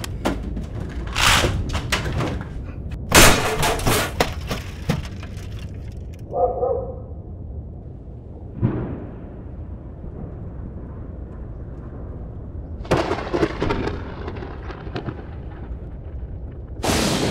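Several crashes and thuds spread out over the stretch, from a desktop computer tower being wrenched from its desk and thrown.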